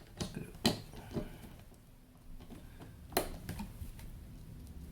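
Sharp metallic clicks and light knocks of tools and chassis parts being handled while an avionics display unit is taken apart, a handful of separate taps with the loudest about three seconds in. A faint steady hum sits underneath in the second half.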